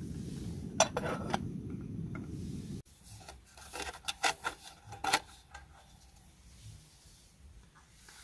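Camping cookware being handled: a metal cook pot, its pot gripper and a mess tin clink and scrape in a few sharp clatters about a second in, then again in a cluster around four to five seconds in. Under the first clatters a steady low rush cuts off abruptly about three seconds in.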